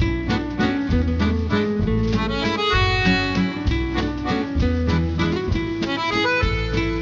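Instrumental background music with quick plucked notes over a bass line.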